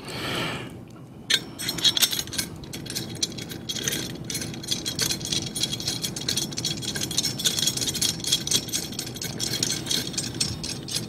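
Rapid, irregular metallic clicking and rattling of a wrench and bolts worked on a steel ball-valve mounting bracket, over a low steady hum.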